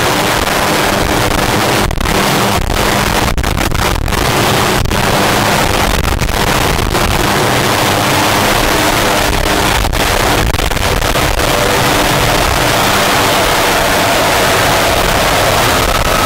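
Hughes 500-family light helicopter starting up: its Allison 250 turboshaft running with the main and tail rotors turning slowly, a loud steady rush of engine and blade noise. A thin high turbine whine comes in near the end.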